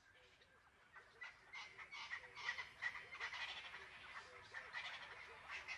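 Riverside chorus of croaking frogs with some bird calls, a dense run of short rapid calls that grows louder about a second in.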